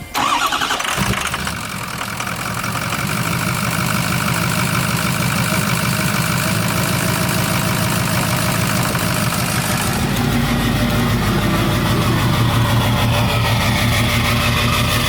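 Ford 6.0 Power Stroke V8 turbo diesel, just fitted with a KC Stage 3 turbocharger, starting up and catching within about a second, then idling steadily. It is the first start after the turbo swap, with oil primed beforehand. The sound deepens about ten seconds in.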